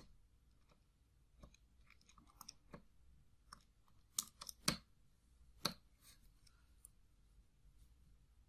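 Faint, irregular clicks of calculator keys being pressed as a sum is keyed in. The clearest clicks come in a cluster about four to six seconds in.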